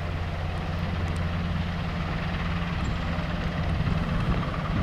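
NH90 helicopter's twin turboshaft engines and main rotor running on the ground, a steady low drone with turbine noise above it. The sound grows a little louder and rougher near the end.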